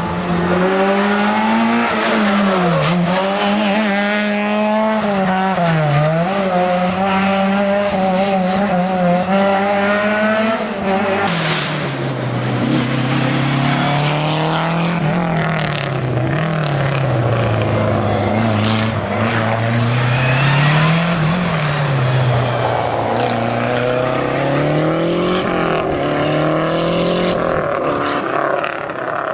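Historic rally car engine at full throttle on a rally stage, the revs climbing and dropping over and over as it is driven hard through the bends.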